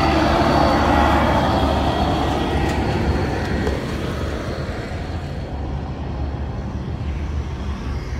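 A road vehicle passing, its rushing tyre and engine noise loudest in the first second or so and fading away over the next few seconds, over a steady low rumble.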